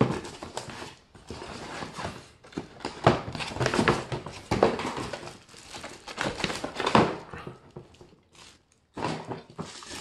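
Unboxing handling noise: packaging rustling and crinkling, with irregular knocks and scrapes as the robot vacuum's plastic parts are lifted out and turned over. It goes quiet briefly near the end.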